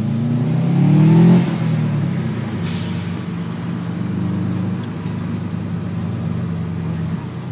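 Car engine accelerating, its pitch rising for about a second before easing off, then running steadily at cruise. A short hiss sounds just under three seconds in.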